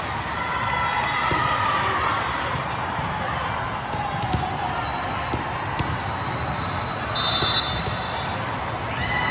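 Indoor multi-court volleyball hall ambience: a steady hubbub of voices with scattered thuds of volleyballs being bounced and hit, and a few sharp knocks in the middle.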